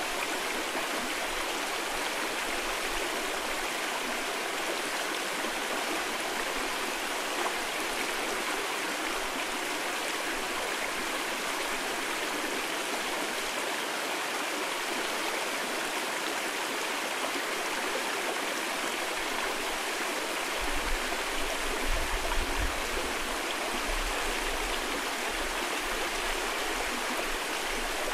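A mountain valley stream rushing steadily over rocks. From about 20 seconds in, gusts of wind buffet the microphone with a low rumble.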